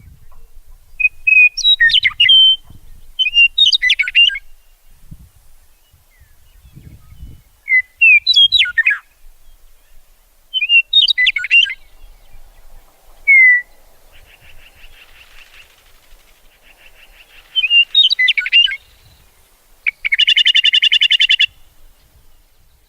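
Songbirds singing: short chirping, whistled phrases repeated every couple of seconds, and about three-quarters of the way in a buzzy trill, ending with a loud buzzy trill near the end.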